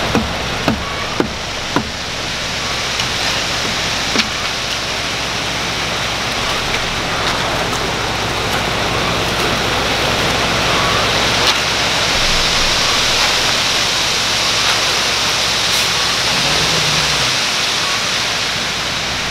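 Wet concrete pouring down a ready-mix truck's chute onto the slab: a steady rushing hiss like running water, with the truck's engine running low underneath until near the end. A few sharp clicks in the first few seconds.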